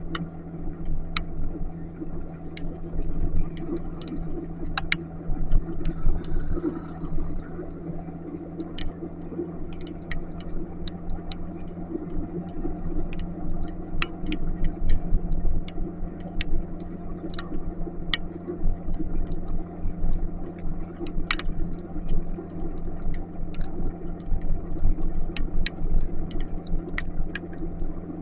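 Motorcycle engine running steadily under way, with a low road and wind rumble. Scattered sharp ticks of raindrops strike throughout.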